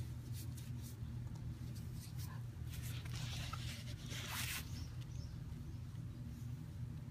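Mixed-hair calligraphy brush dragged across thick double-layer gasenshi paper, a soft papery swish from about three to four and a half seconds in, with a few faint ticks near the start. A steady low hum runs underneath.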